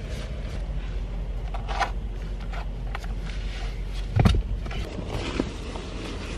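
Rustling and scraping of a puffy sleeping bag and bedding being handled in a car, with a dull thump about four seconds in, over a steady low rumble.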